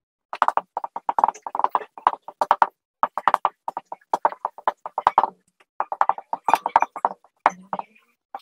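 Dry-erase marker squeaking in quick short strokes as words are written on a whiteboard, with a couple of brief pauses between phrases.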